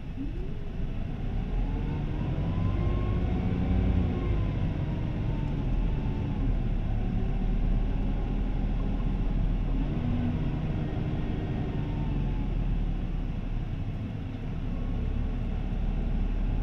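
Isuzu Erga (2DG-LV290N3) city bus's four-cylinder turbo diesel heard from inside the passenger cabin, with a steady low drone. Its pitch climbs over the first few seconds as the bus accelerates, sinks back as it eases off, and climbs again about ten seconds in.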